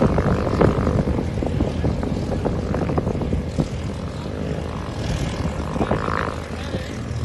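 Heavy rally truck's diesel engine idling with a steady low rumble, mixed with wind buffeting the microphone and scattered small knocks.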